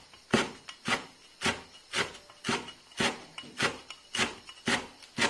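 A kitchen knife slicing a bundle of fresh herb stems into shreds on a cutting board, in even strokes about two a second.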